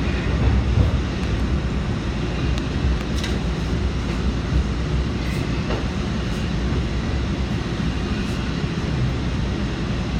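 Subway train running along the track, heard from inside the car: a steady rumble of wheels on rail with a few faint clicks.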